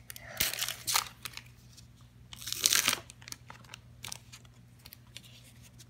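Trading cards being handled and flipped through by hand: two short rustling swipes of card stock, about half a second in and again about two and a half seconds in, with small clicks between, over a faint steady hum.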